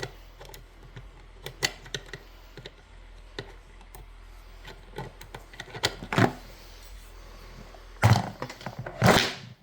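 Scattered light clicks and small knocks from a plastic toy being handled as its battery compartment is opened and batteries are fitted, with a couple of louder rustling noises near the end.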